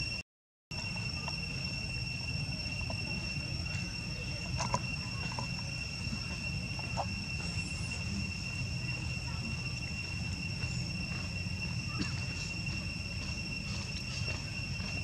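Insects trilling as one steady high-pitched tone over a low background rumble. The sound drops out for about half a second right at the start.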